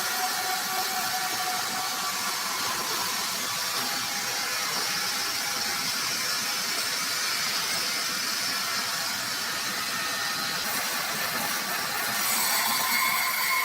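Sawmill machinery running with a steady hiss, growing a little louder with a higher tone near the end.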